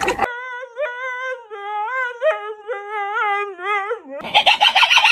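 Dog howling in one long, sing-song tone whose pitch wobbles up and down in small waves for about four seconds, then breaking into harsher, raspy vocal sounds near the end.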